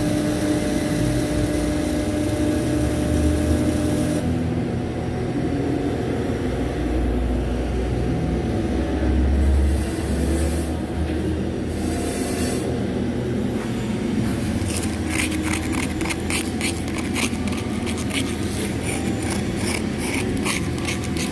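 Steady machine hum with a low rumble, then, from about two-thirds of the way in, the dense, rapid crackle of a flux-cored welding arc.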